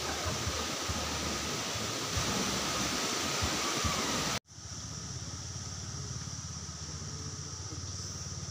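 Rushing, churning water of a spring-fed pool, a steady even wash. About four seconds in it cuts off abruptly, and a quieter steady outdoor hiss with a thin high tone takes its place.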